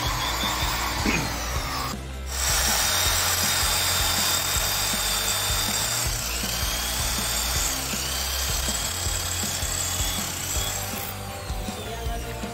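Corded electric hand drill running under load as it bores through a metal plate. It stops briefly about two seconds in, then runs on. Background music plays alongside.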